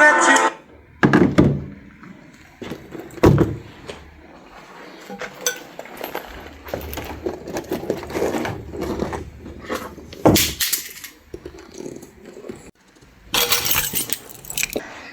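Scattered knocks and clinks of objects being handled, with a sharp knock about a second in and another about three seconds in, and louder noisy bursts about ten seconds in and near the end.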